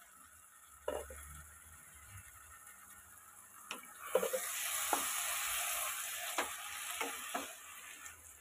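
A spatula stirs ridge gourd and pumpkin curry in a nonstick kadai, knocking and scraping against the pan several times over the food's sizzle, which swells about four seconds in. There is a single clack about a second in.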